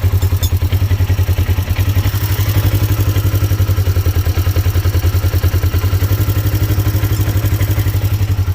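Polaris XP1000's parallel-twin engine idling steadily, with an even pulse and no cam chain rattle: a Tusk automatic cam chain tensioner has been fitted and the engine runs quiet as can be.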